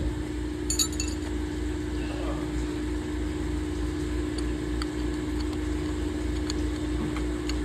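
Steady machine hum with a low, evenly pulsing drone beneath it, and a brief cluster of metallic clinks about a second in.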